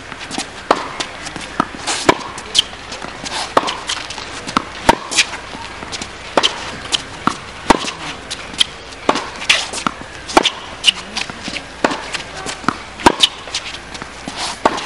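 Tennis rally on a hard court: a steady run of sharp knocks, one or two a second, from rackets striking the ball and the ball bouncing on the court.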